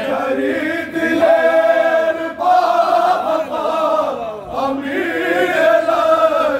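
A group of men chanting an Urdu noha, a Shia lament, in unison behind a lead reciter, several voices overlapping on long held, gliding notes.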